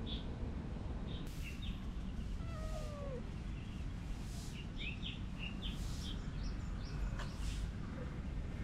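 Domestic cat giving one short meow that falls in pitch, about two and a half seconds in. Small birds chirp briefly throughout over a steady low background noise.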